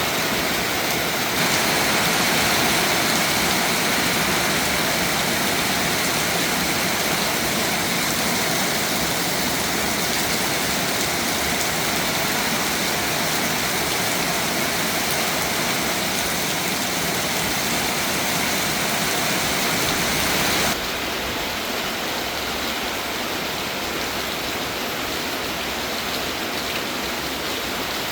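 Steady rain falling, an even hiss. The sound changes suddenly about a second in and again about 21 seconds in, a little quieter after the second change.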